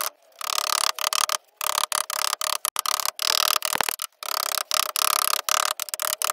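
Sheet lead being bossed over a timber block with a plastic lead-bossing tool: a quick, uneven run of knocks, about two or three a second, with the tool scraping and rubbing across the lead between blows.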